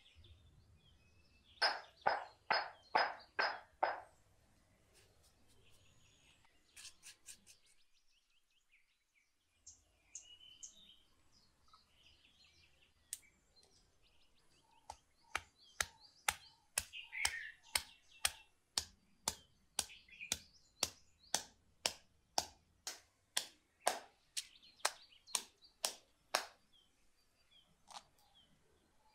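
Stone pestle pounding in a granite mortar, crushing ginger: a short run of about six strikes near the start, then steady strikes about twice a second through the second half. Birds chirp faintly in the background.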